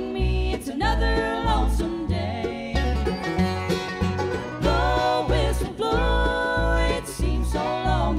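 Bluegrass band playing: banjo picking and fiddle over an upright bass that keeps a steady beat, with women singing in harmony.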